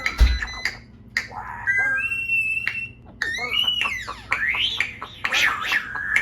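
A pet parrot calling: a run of whistles and squawks that slide up and down in pitch, with some held notes. A low thump comes just after the start.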